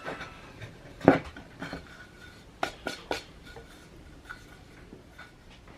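A few light knocks and clicks, scattered and irregular, from handling a wooden board and tools on a workbench; no router is running.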